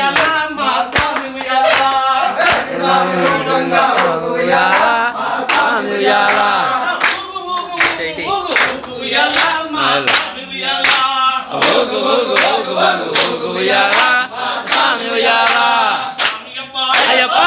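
A group of men singing a devotional song together, loud and in unison, over a steady beat of hand claps.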